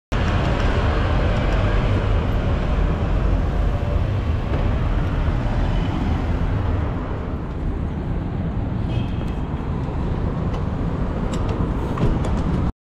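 Urban road traffic noise with a heavy low rumble, picked up by a cyclist's action camera, with a few sharp clicks near the end before it cuts off suddenly.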